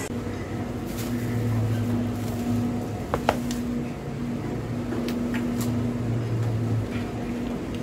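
Low electrical hum that comes and goes, with a few light clicks and a brief squeak about three seconds in.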